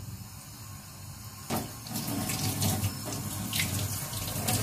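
Kitchen tap running into a stainless steel sink, the water splashing over hands rinsing a sardine. It starts suddenly about a second and a half in.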